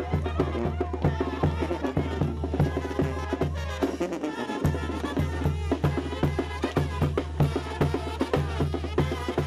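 Lively band dance music with a steady, quick drum beat.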